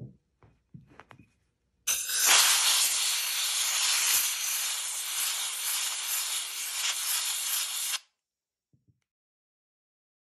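Compressed-air blow gun hissing as it blows dust out of a bearing seated in its housing: one steady blast of about six seconds that starts and cuts off abruptly. A few light handling clicks come just before it.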